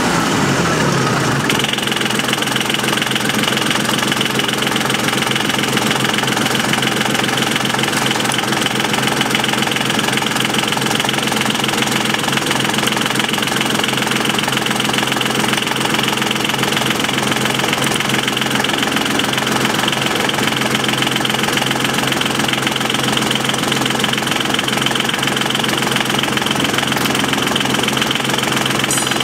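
Engine running at a steady speed while its fuel injection pump is being adjusted by hand; the sound shifts and settles in the first second or two, then holds an even note.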